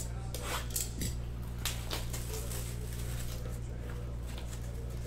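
A sealed cardboard trading-card box being slit and pulled open with a blade: a few short scraping strokes in the first two seconds, then quieter handling, over a steady low hum.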